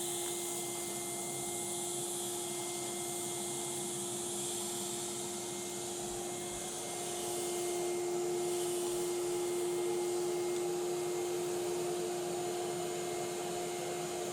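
Numatic Henry vacuum cleaner running steadily: a constant motor whine over a hissing rush of air, growing a little louder about seven seconds in.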